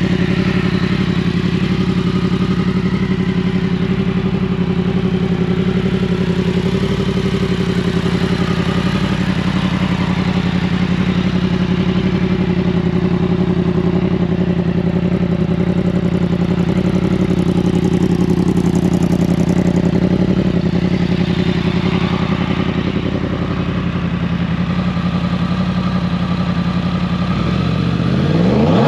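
2017 Yamaha FZ-10's crossplane inline-four idling steadily through an aftermarket exhaust. Near the end, a quick sharp rev of the throttle begins.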